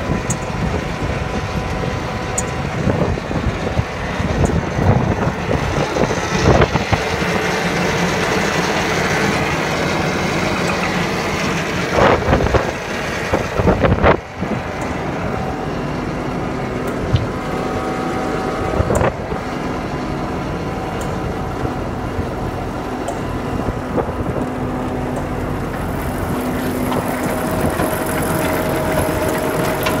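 An engine running steadily, with wind on the microphone and a few sharp knocks near the middle.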